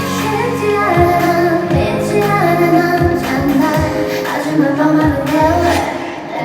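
Pop song with a woman singing over bass and drums.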